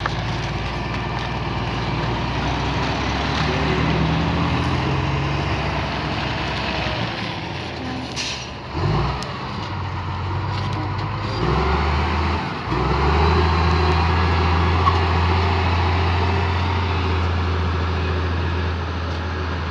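Heavy engine running steadily, its low note shifting about nine seconds in and again about twelve seconds in, then holding steady.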